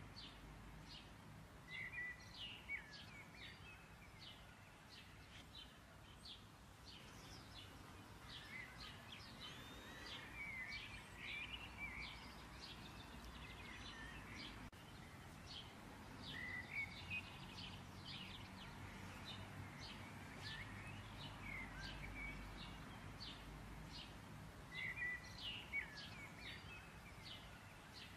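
Small birds chirping faintly in short repeated calls, over a low background hum.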